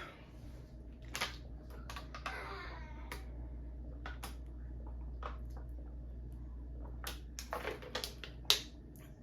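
Scattered light clicks and taps of things being handled, with short rustles, over a low steady hum.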